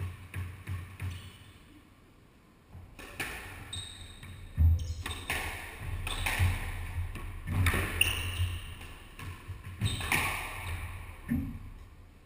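Squash rally: the rubber ball is struck by rackets and smacks off the walls and wooden floor, with sharp reverberating hits and short squeaks of shoes on the court floor. It opens with a few quick, evenly spaced bounces of the ball, and the loudest hit comes a little before the middle.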